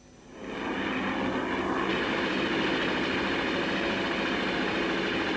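Aircraft engine noise that swells up about half a second in, then runs loud and steady.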